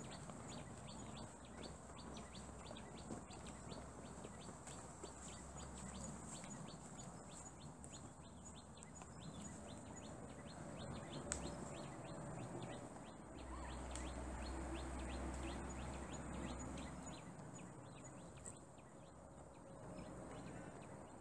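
Faint outdoor ambience of small birds chirping in quick, repeated high notes over a steady high insect-like hiss. A low rumble swells for a few seconds past the middle.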